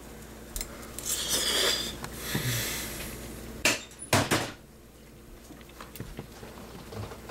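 Kitchen clatter of dishes and a serving utensil: a stretch of rustling noise over the first two seconds, then a few sharp knocks about four seconds in.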